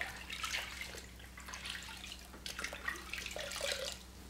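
Water sloshing and splashing in a bucket as a hand swishes around in it, in irregular bursts that die away shortly before the end.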